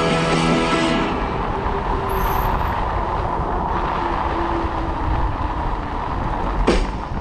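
Steady rush of wind on the microphone and wheels rolling over a gravel trail while riding along it, after rock music cuts out about a second in. A short knock comes near the end.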